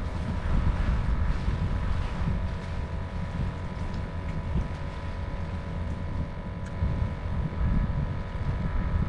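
Boat motor running steadily with a constant whine, under heavy wind buffeting on the microphone.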